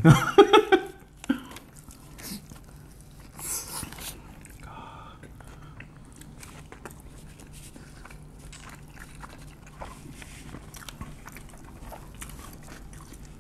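Close-miked chewing and biting of crisp birria tacos, tortillas fried in consommé: many small crunches and wet mouth clicks, with a louder crunch about four seconds in. A short burst of voice at the very start.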